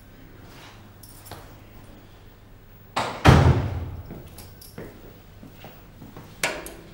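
A loud bang about three seconds in, with a deep rumble that dies away over about a second. A smaller sharp knock follows near the end.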